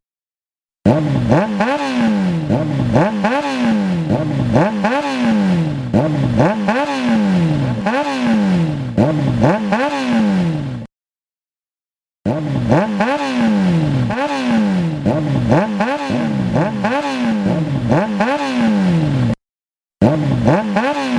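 Motorcycle engine revved over and over, each rev climbing in pitch and dropping back, about one every second and a half. The sound cuts to dead silence twice, for about a second each time.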